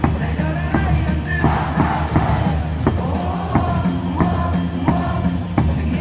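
Baseball stadium crowd singing a cheer song along with loud amplified music that carries a steady beat.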